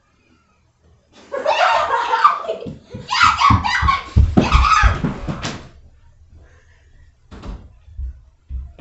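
A boy yelling loudly without words for about four seconds, starting about a second in, over heavy thuds and a sharp knock near the middle. Two softer thuds follow near the end.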